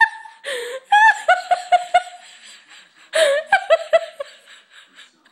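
A person laughing in two fits of rapid, high-pitched giggles, about a second in and again just after three seconds, with a breathy gasp before the first.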